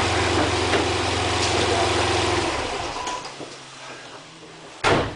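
Nissan 300ZX V6 engine idling steadily, then shut off about two and a half seconds in, the sound dying away. A single sharp knock near the end.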